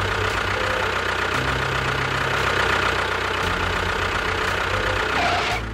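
Tractor engine running steadily with a knocking chug, cutting off suddenly near the end.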